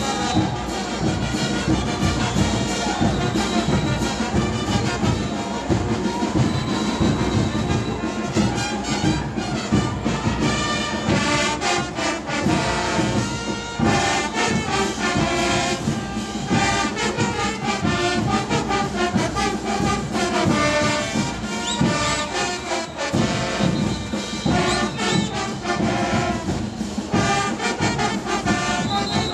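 Bolivian festival brass band playing, with trumpets and trombones over drums keeping a steady beat.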